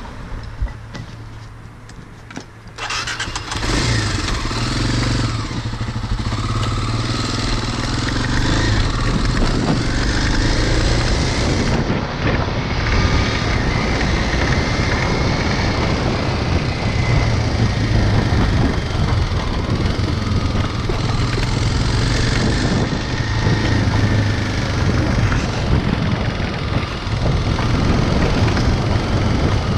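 Motorcycle engine starting about three seconds in, then running and revving as the bike pulls away and rides along the street.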